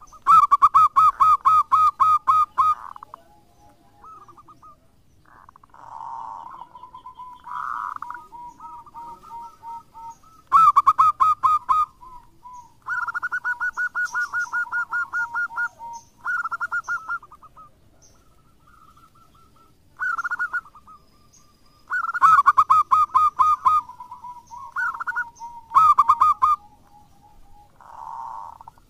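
Zebra dove singing: several loud phrases of rapid, staccato cooing notes, with softer, lower coos between them.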